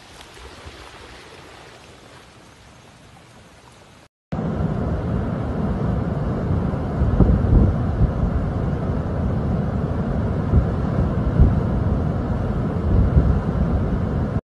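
Flood water rushing quietly, cut off about four seconds in. After a brief silence comes a much louder, steady, deep rushing of a muddy flash-flood torrent and waterfalls pouring down a rocky mountainside.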